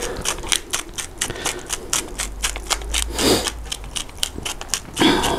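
Hand pepper mill being twisted to grind peppercorns: a fast run of dry clicks, about five or six a second, with two short louder noises, about three seconds in and just before the end.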